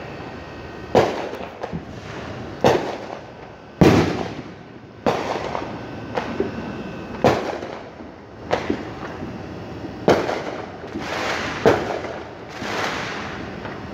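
Fireworks going off: a string of sharp bangs about a second or so apart, each trailing off in a rolling echo, with a crackling spell near the end.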